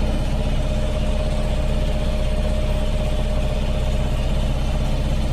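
Small Aquabus passenger ferry's engine running steadily at cruising speed, heard from on board: an even low hum with a constant hiss of water and air over it.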